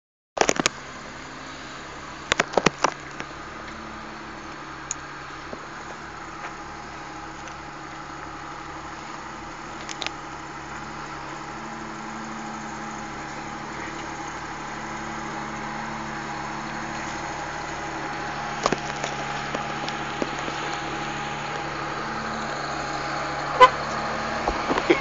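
Jeep Cherokee engine running at a low, steady crawl up a rutted dirt trail, growing gradually louder as the vehicle approaches. A few sharp clicks and knocks cut in along the way.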